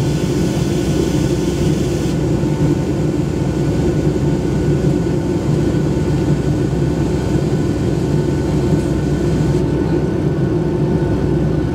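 Steady drone of a Boeing 757-200's jet engines and rushing air heard inside the passenger cabin during the climb after takeoff: a low rumble with faint steady whining tones, the higher hiss easing slightly about two seconds in.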